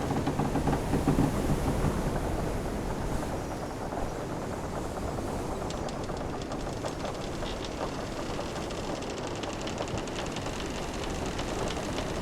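Sound-effect ambience of a wooden sailing ship at sea: a steady wash of ocean waves with the ship's timbers creaking. A low groan sounds in the first two seconds, and a run of fine ticking comes around the middle.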